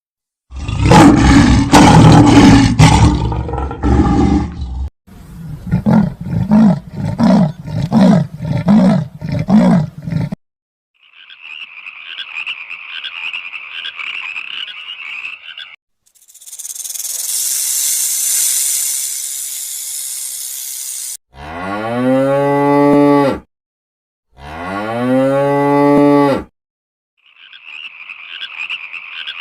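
A series of different animal calls, one after another. First comes a loud roar, then a run of about nine rhythmic grunts. Next is a high buzzing call, then a long hiss, then two long, deep moos, each about two seconds, and a frog-like croaking chorus starts near the end.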